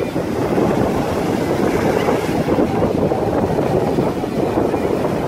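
Wind buffeting a phone's microphone over the steady wash of breaking surf, an unbroken rough noise.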